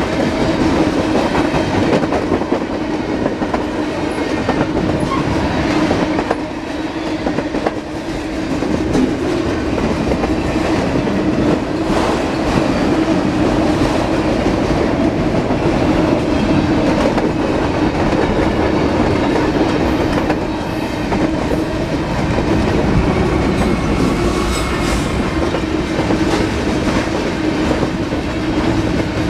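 Norfolk Southern manifest freight train rolling past at speed, its car wheels clacking steadily over the rail joints.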